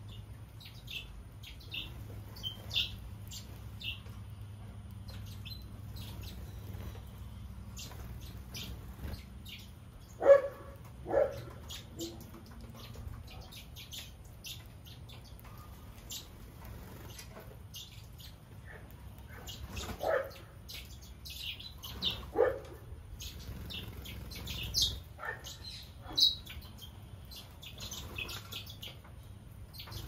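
Small aviary birds, Gouldian finches and Rosy Bourke's parakeets, chirping in many short high calls throughout. A few louder, lower sounds stand out about ten, twenty and twenty-two seconds in.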